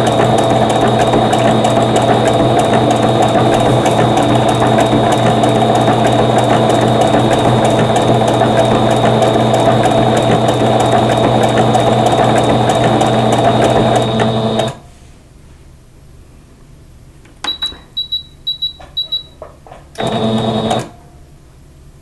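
Singer 7285Q Patchwork computerized sewing machine stitching a blanket stitch at steady speed. It stops about 15 s in, then sews a few short bursts of stitches as the fabric is turned, and runs briefly once more near the end.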